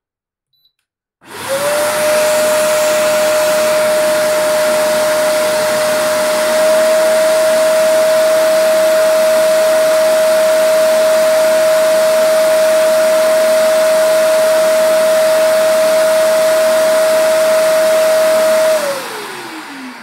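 Resanta PS-1500/20 construction vacuum cleaner's motor starting up on its own in automatic mode, triggered by the load on its tool socket. It spins up about a second in and runs with a steady high whine. Near the end it shuts off and winds down, falling in pitch.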